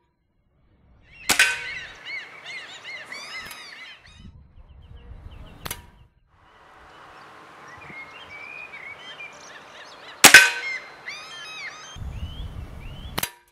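Two shots from a Weihrauch HW97 KT .22 spring-powered air rifle, about nine seconds apart, the pellets striking the paper target. Each is a sharp crack followed by about a second of chirping sounds, and fainter single clicks fall between the shots and near the end.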